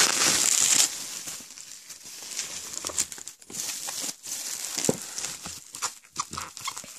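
Bubble wrap crinkling and crackling as hands grip and pull at a tightly wrapped package. It is loudest for about the first second, then goes on as softer, scattered crackles.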